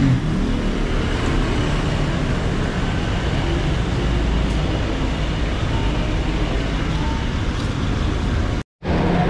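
Steady city street traffic: engines and tyres of passing vehicles, with the sound cutting out for a moment near the end.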